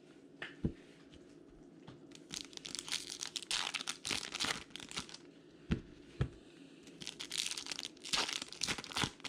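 Foil wrapper of a Bowman Chrome baseball card pack being torn open and crinkled by hand, in repeated short bursts with a few sharp clicks.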